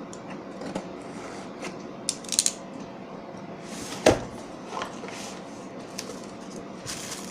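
A speaker's packaging being opened and handled by hand: scattered small clicks and rustles, with one sharper knock about four seconds in.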